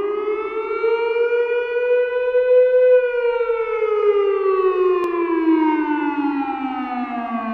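A siren winding up in pitch over about three seconds, then slowly winding down, in one long wail.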